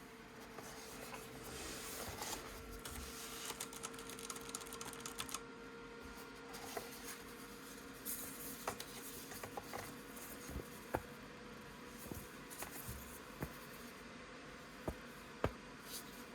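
Rustling as the keyboard is handled, then scattered single key presses on a DREVO Seer PRO Mini mechanical keyboard with Gateron Brown switches, separate clicks rather than fast typing.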